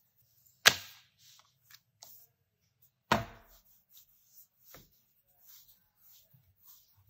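Wooden rolling pin knocking twice on a wooden pastry board, about two and a half seconds apart, among faint rubbing and small clicks as pastry dough is rolled out.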